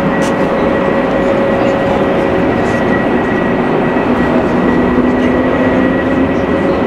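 Airbus A350-1000's twin Rolls-Royce Trent XWB turbofans at high thrust as the airliner climbs steeply overhead. The jet engine noise is loud and steady, with a few held whining tones in it.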